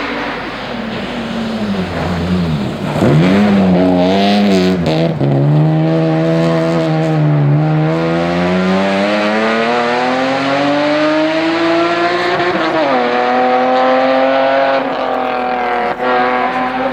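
Rally car engine revving hard under load, its pitch dipping and rising, then climbing steadily before a sharp drop at a gear change about twelve and a half seconds in.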